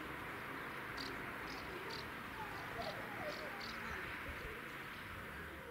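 Quiet rural outdoor ambience: a steady hiss with short high chirps repeating about twice a second, typical of birds and insects, and a few faint lower calls near the middle.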